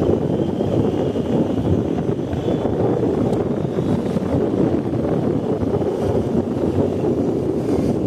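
BMW R 1250 GS boxer-twin motorcycle being ridden, heard as steady wind buffeting on the microphone over a low engine rumble.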